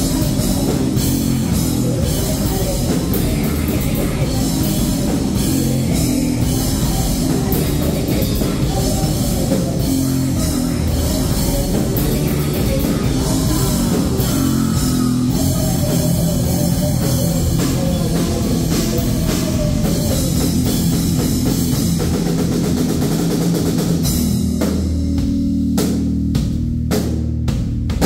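Heavy rock band playing loud and live, with drum kit and electric guitar. About three-quarters of the way through, the band breaks into stop-start hits over a continuing low end.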